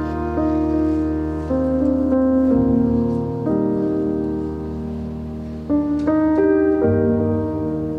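Slow instrumental program music with piano: held chords that change every second or so over low bass notes, growing louder about six seconds in.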